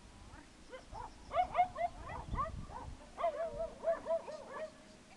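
A dog yipping and barking in a quick unbroken string of short high calls, several a second, starting about a second in.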